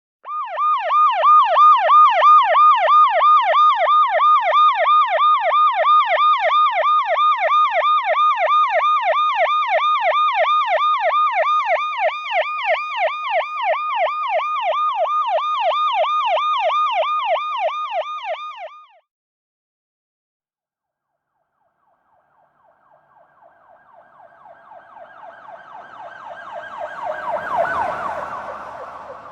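Emergency-vehicle siren in a fast yelp, sweeping up and down about four times a second, cutting off abruptly about two-thirds of the way in. After a few seconds of silence, another emergency vehicle's siren comes in with road noise, growing louder as it passes to a peak near the end, then falling away.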